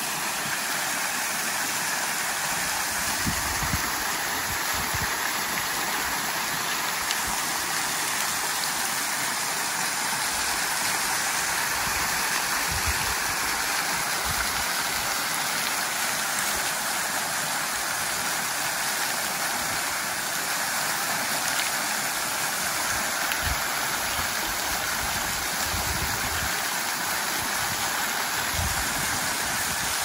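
Small waterfall splashing into a shallow pool: a steady rush of falling water.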